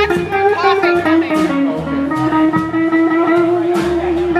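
Live blues band: an electric guitar plays a lead line of bent notes, then holds one long wavering note from about halfway through, over upright bass and drums.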